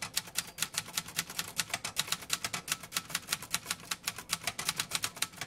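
Brother 200 mechanical typewriter being typed on: a quick, even run of type-bar strikes on the platen, about six a second.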